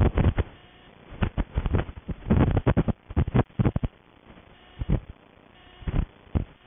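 Wind buffeting the camera microphone in irregular gusts, a run of rumbling bursts with quieter stretches between.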